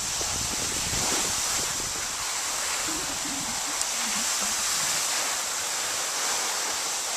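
Steady sliding hiss of a board or skis gliding over granular spring snow, with wind rumbling on the microphone.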